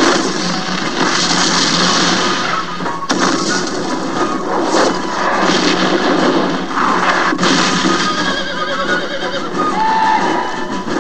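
Film battle soundtrack: muzzle-loading field cannons firing and shells bursting several times, horses neighing, over orchestral music.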